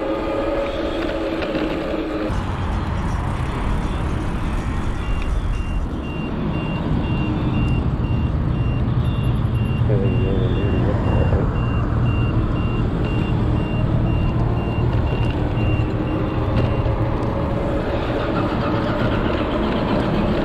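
Wind and tyre rumble from an ebike under way, with the whine of its geared hub motor near the start and rising again near the end. A steady run of high electronic beeps sounds through the middle, for about twelve seconds.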